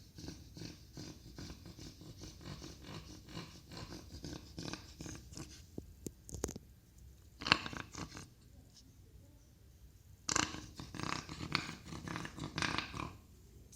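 A dog's honking 'goose-honk' cough, coming in fits of quick, harsh hacks: a long run at the start, a short sharp bout about seven and a half seconds in, and another run from about ten seconds in. A cough of this kind is typical of tracheal collapse or bronchial obstruction.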